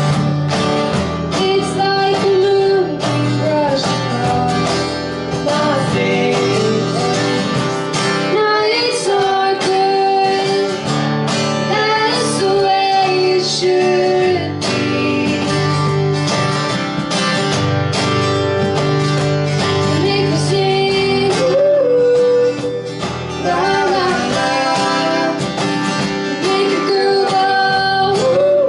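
Live acoustic band: two acoustic guitars strumming under a woman singing the lead melody.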